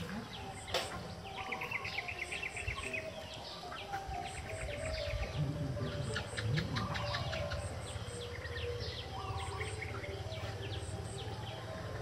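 Several small birds chirping and trilling, the calls overlapping, with short high peeps that come in groups of three. A low steady hum sits underneath from about halfway through.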